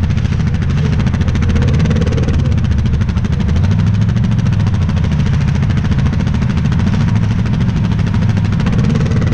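Yamaha Grizzly 700 ATV's single-cylinder four-stroke engine running at low, steady speed as the quad creeps along a dirt trail.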